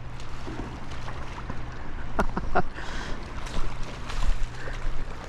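Flowing river water with a steady low rumble of wind on the microphone, and a few short sharp sounds about two seconds in.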